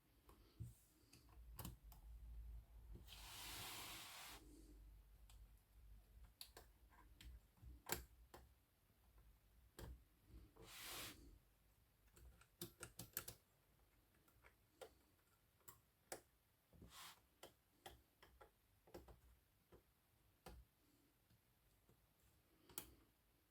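Faint, irregular clicks and taps from an Olivetti Lettera 22 typewriter's mechanism as its parts are handled, a few in quick little clusters. Two longer swishing noises come about three seconds in and about ten seconds in.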